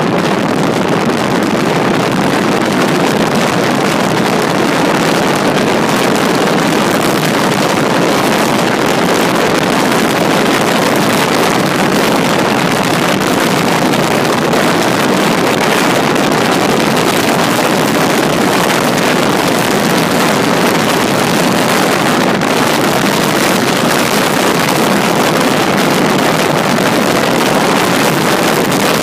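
Yellowfin 24 bay boat running at speed on Yamaha outboard power: a loud, steady rush of wind and water noise that does not let up.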